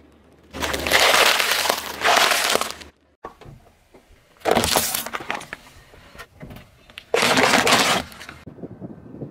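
A car tyre rolling over and crushing things on asphalt, in three separate bursts of crunching and cracking. The first and longest, about two seconds, is a head of romaine lettuce crushed under the tyre. Two shorter bursts follow as other objects are run over, among them a plastic tub.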